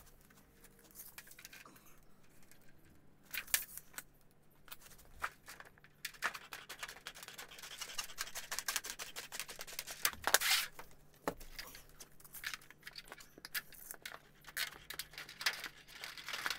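Painted metal flashing coil being unrolled, crinkling and clicking, then hand tin snips cutting across the sheet in a run of rapid clicks and rasps. The cutting is loudest about ten seconds in.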